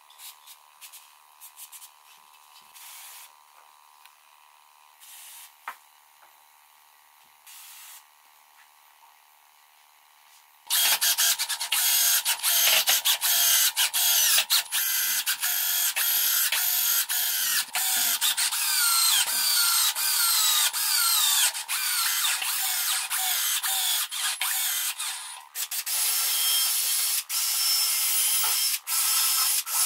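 Cordless drill-driver running in repeated short trigger pulls into pine table-frame joints, its whine dropping in pitch on each run. It starts about ten seconds in, after a quiet stretch with a few short hisses of aerosol glue-activator spray.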